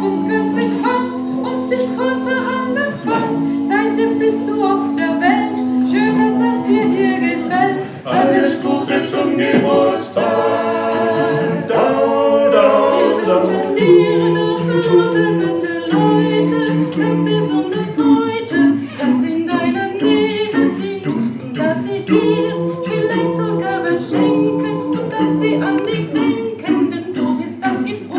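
Mixed vocal quartet of two women and two men singing a cappella in close harmony, holding sustained chords that move from note to note.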